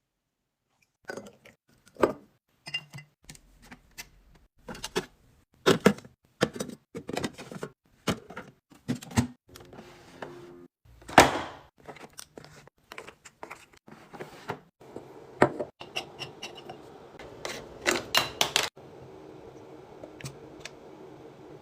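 Irregular clicks, taps and clatter of containers and food items being handled and set down while a refrigerator is restocked, with one longer, louder rustle about eleven seconds in. A faint steady low hum comes in during the last couple of seconds.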